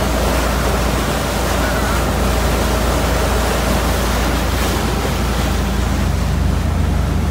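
Steady rush of churning water and spray along a moving boat's hull, with wind buffeting the microphone and a constant low rumble underneath.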